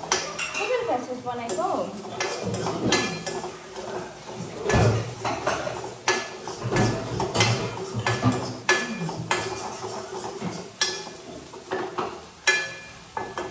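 Metal spatula stirring in a steel wok on a gas stove: a run of sharp scrapes and clinks of metal on metal, several a second.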